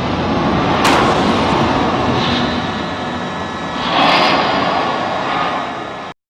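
Explosions at the Fukushima Daiichi reactor 3 building: a series of heavy booms with a long rolling echo, one sharp blast about a second in and another swelling boom about four seconds in, the sound cutting off abruptly near the end.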